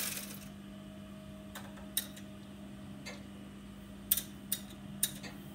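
A handful of sharp, separate clicks from the needle-disengage controls on the head of a Brother twin-needle industrial sewing machine as they are pressed and set, with the machine not stitching. A steady low hum runs underneath.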